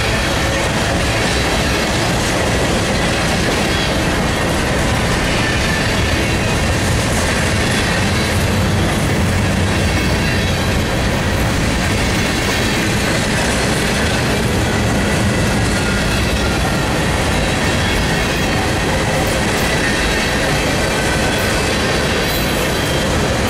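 Freight cars rolling steadily past at close range: a loud, constant rumble of steel wheels on rail, with a faint high-pitched wheel squeal riding over it.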